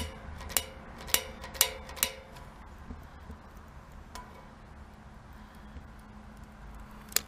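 Long-nosed butane utility lighter clicking as its trigger is worked, about two sharp clicks a second for the first two seconds, then fainter clicks, and one more sharp click near the end.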